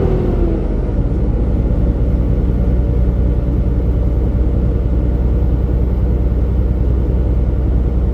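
Semi-truck's engine and road noise as it drives, a steady low drone. A higher whine slides down and fades out about half a second in.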